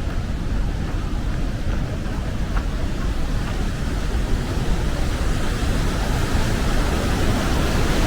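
Steady rushing roar of a waterfall's glacial water pouring through a canyon, with a heavy low rumble, growing slightly louder near the end.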